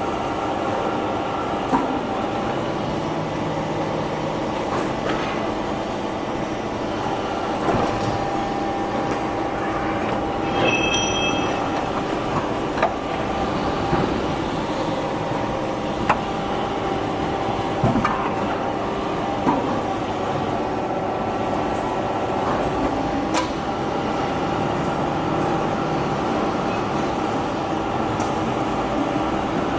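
Steady mechanical hum of a 55-ton vertical dental floss making machine running, with scattered sharp clicks and knocks.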